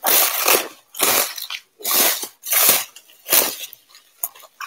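Plastic bubble-wrap packaging around a teapot crinkling and rustling as it is pulled apart by hand, in a series of loud bursts about one every half second to second, weaker near the end.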